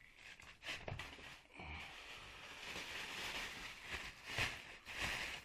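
Rustling and scraping as copper winding wire pulled from a washing machine motor's stator is handled, a rough continuous rasp with a few sharper strokes.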